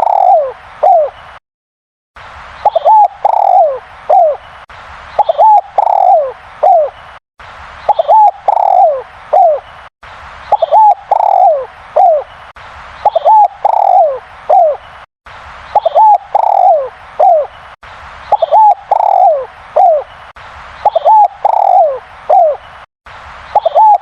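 Derkuku (spotted dove) cooing loudly, repeating the same short phrase of several coo notes about every two and a half seconds.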